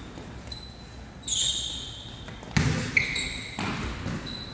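Basketball sneakers squeaking on the hardwood gym floor, with a basketball thudding twice, about half a second apart, around two and a half seconds in.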